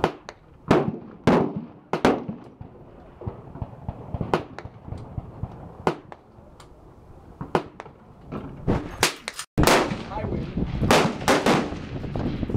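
Gunshots at a shooting range: a string of single sharp cracks spaced irregularly, about a second or two apart, coming closer together near the end.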